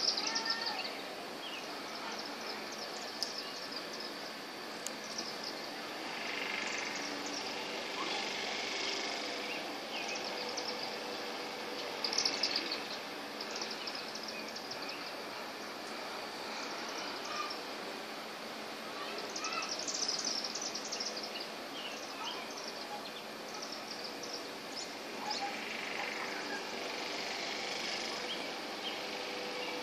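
High, rapid chittering calls from small animals flying overhead, which the uploader takes for bats, coming in short clusters every few seconds over a steady outdoor background hum.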